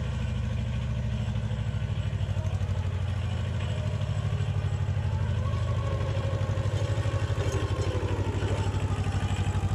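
Kubota compact tractor's diesel engine running steadily with a fast, even chug as the tractor drives out of its shed.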